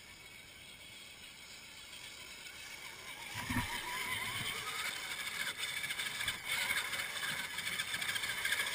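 Electric drive motor and gears of a scale RC rock crawler whining as it drives through a shallow creek, with water splashing around the wheels. It grows louder as the truck nears, with a wavering whine and a few low knocks from about three and a half seconds in.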